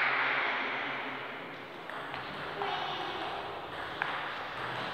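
Table tennis ball knocks dying away in a large, echoing hall, then two faint, sharp ball ticks, about four seconds in and near the end.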